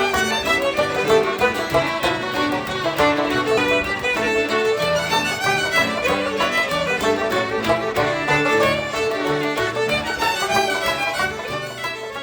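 Instrumental Celtic music led by fiddle, a lively run of quick notes.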